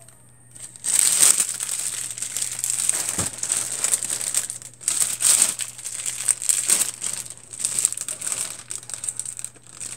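Clear cellophane wrap on gift baskets crinkling as the baskets are gripped and moved, in uneven spurts starting about a second in.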